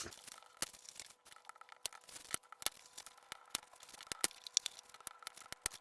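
Scored cardstock being folded along its crease lines and handled, with many small, irregular sharp paper clicks and crinkles.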